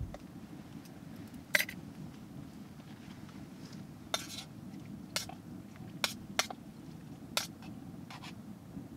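A metal spoon clinking and scraping against a camp mug of food as it is stirred, about six sharp clinks, the loudest about a second and a half in, over a low steady hum.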